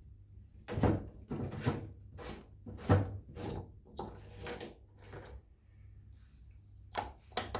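Plastic drain pump filter of a Samsung washing machine being turned counterclockwise and worked out of its housing by hand: a run of short, irregular rubbing and scraping strokes.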